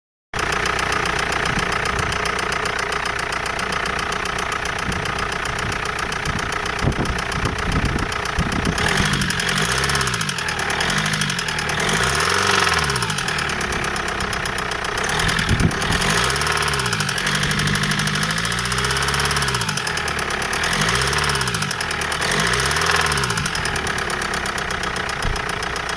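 Car engine running with a steady, fast knocking that the owner cannot account for. From about nine seconds in, the engine speed rises and falls over and over.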